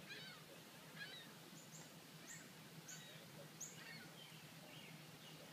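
Faint bird calls outdoors: scattered short chirping calls, with a quick run of about five high chirps in the middle, over a faint low steady hum.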